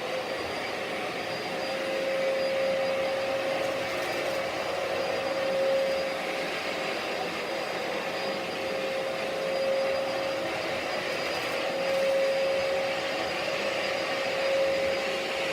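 Dyson DC07 upright vacuum cleaner running steadily: a constant motor whine over a rushing of air.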